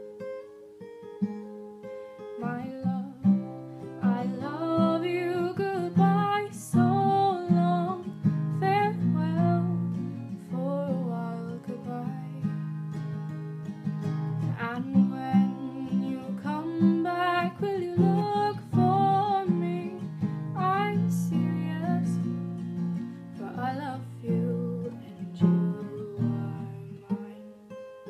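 Acoustic guitar with a capo, played steadily, with a woman singing over it from about two seconds in.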